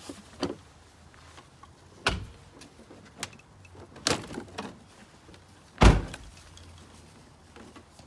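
Knocks and clunks of a Mercedes-Benz C300's air intake duct being pulled up off its fittings and lifted out of the engine bay, with light rattling between them. There are four sharp knocks, the hardest a heavy thump a little under six seconds in.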